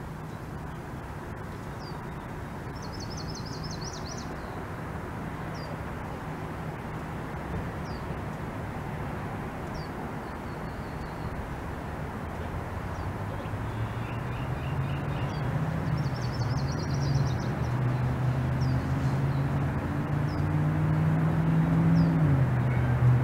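Outdoor ambience: small birds chirping now and then in short trills over a steady low hum. From about halfway through, a low droning tone comes in and grows louder.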